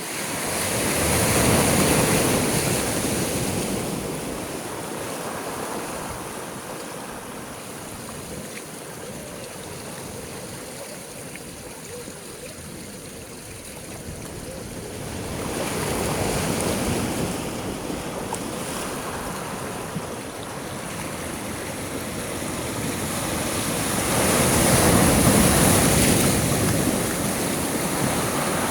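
Sea waves breaking and washing in, an even rushing noise that swells three times: about two seconds in, again around the middle, and loudest near the end.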